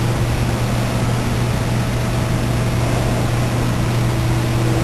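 Steady drone of running power-plant auxiliary machinery: a strong low hum under an even hiss.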